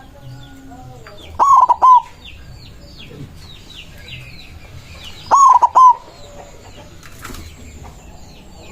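A zebra dove (perkutut) singing twice, each song a quick phrase of about four loud cooing notes. Other small birds chirp faintly in the background.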